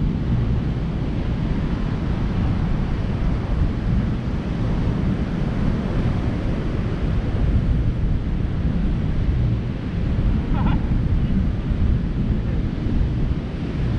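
Strong wind buffeting the microphone over the steady wash of breaking surf, a constant low rumble.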